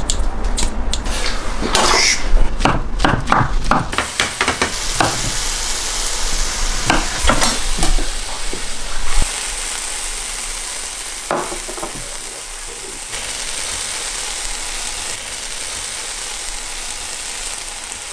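Kitchen scissors snipping turkey bacon into a hot grill pan, a run of sharp snips and clicks over the first few seconds. Then comes a steady sizzle of frying, with a fork stirring and clicking in a bowl as egg whites are whisked.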